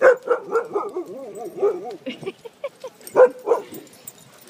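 Dogs vocalizing in rough play: a loud bark right at the start and a quick run of short calls, then a wavering, yodel-like whine. About three seconds in come two sharp barks close together.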